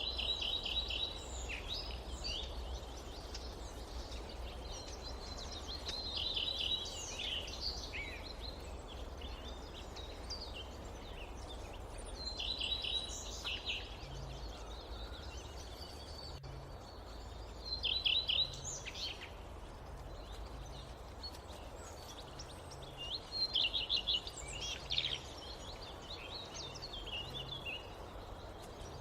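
A songbird singing in a forest, repeating the same short phrase five times, about every six seconds: a high note followed by a quick run of notes. The song sits over a steady low background hush.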